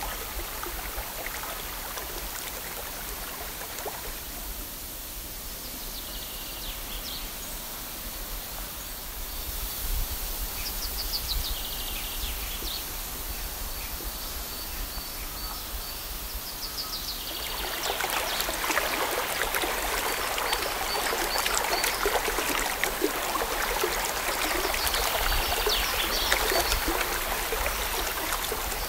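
Outdoor ambience of running water, with a few short high bird chirps. About two-thirds of the way through, the water gets louder and more splashy.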